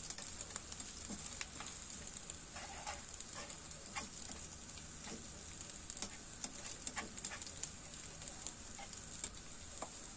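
Chopped garlic, shallots and dried shrimp sizzling in hot oil in a frying pan, sautéed until fragrant, with a steady hiss and many scattered light clicks. A metal slotted spatula stirs them, scraping and tapping on the pan now and then.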